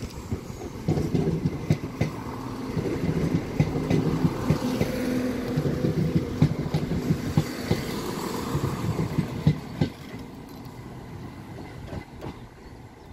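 ScotRail Class 170 Turbostar diesel multiple unit passing at speed: a steady engine drone with many sharp clicks from the wheels over the track. It fades after about ten seconds as it draws away.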